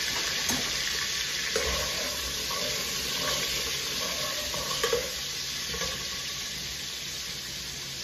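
Onions frying in hot oil in a pot, a steady sizzle, while a spatula stirs them and knocks against the pot a few times.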